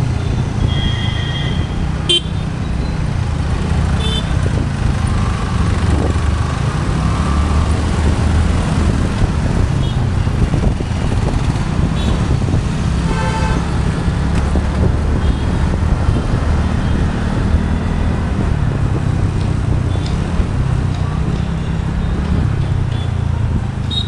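Steady wind rumble and road noise on the microphone of a moving motorbike or scooter in city traffic. Vehicle horns toot about a second in and again about halfway through.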